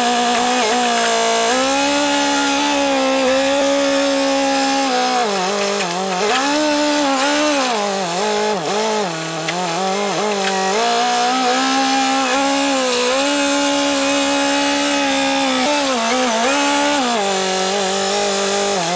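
Telehandler engine running, its pitch dipping and rising several times as the boom and hay grapple are worked to lift and move hay bales, with the biggest dips in the middle and again near the end.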